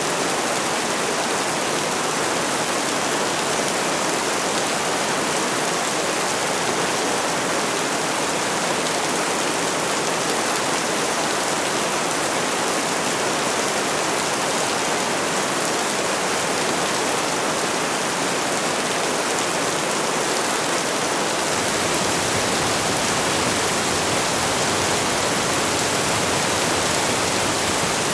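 Steady, dense rain falling, an even hiss with no separate drops standing out.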